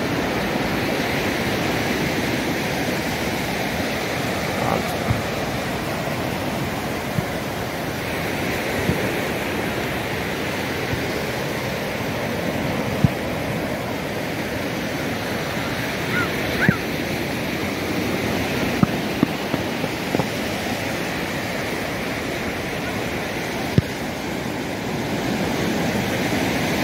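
Steady wash of ocean surf breaking on a sandy beach, with a few short clicks scattered through it.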